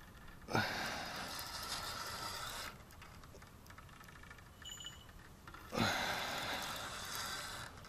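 A fishing rod's bite bell jingling in two bursts of about two seconds each, as a fish pulls on the line: a bite.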